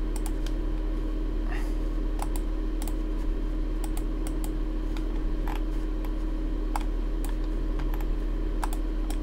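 Irregular clicks of a computer keyboard and mouse over a steady low electrical hum.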